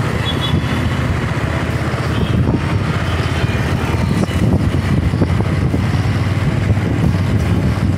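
Steady traffic and road noise heard from a moving vehicle in city traffic, with wind rumbling on the microphone.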